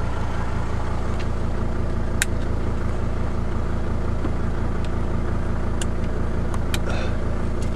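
Mercedes-Benz E290's OM602 five-cylinder turbodiesel idling steadily with an even, rapid diesel clatter; the owner is unsure whether it has developed a knock. A few faint light clicks come through over it.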